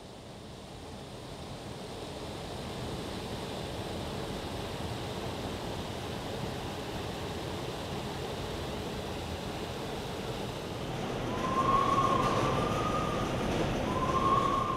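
Old cardboard-mill machinery running: a steady mechanical noise that fades in and grows louder, with three short squeals near the end.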